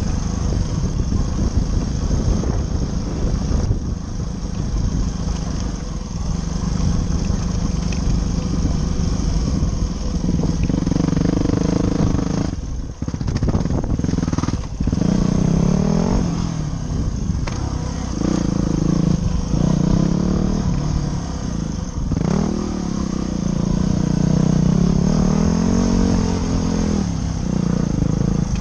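Dirt bike engine running under way on a trail, its note rising and falling over and over as the throttle works, with two brief drops near the middle. A steady rushing noise of wind and riding sits under the engine throughout.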